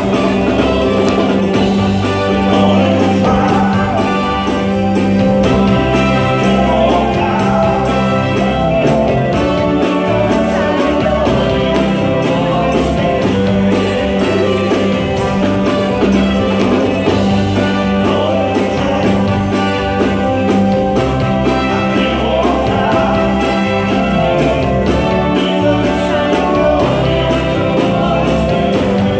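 Live band playing dance music, with a woman and a man singing into microphones over electric bass guitar and a drum kit keeping a steady beat.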